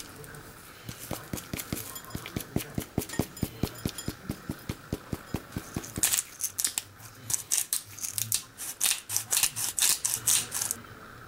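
A container of powdered cheese being shaken, an even run of sharp clicks about five a second, then a coarse black pepper mill grinding in a louder run of crisp rapid clicks that stops suddenly near the end.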